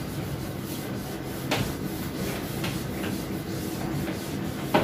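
Whiteboard duster rubbing across a whiteboard as writing is wiped off, with two sharp knocks against the board, about a second and a half in and near the end.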